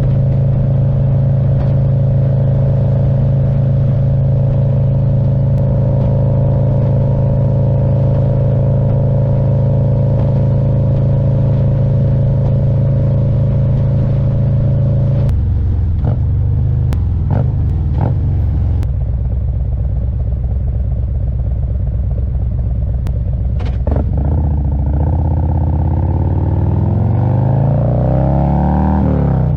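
2024 Harley-Davidson Road Glide's Milwaukee-Eight 117 V-twin running at a steady pitch while cruising. About halfway through the pitch drops, with a few sharp clicks, and near the end it rises again as the bike accelerates.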